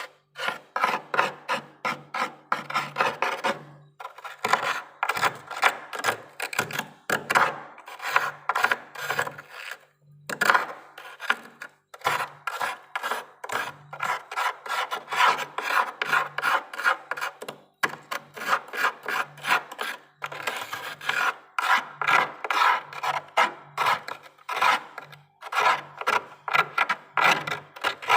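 A metal spoon scraping thick frost in rapid repeated strokes, about two to three a second, with a few short pauses.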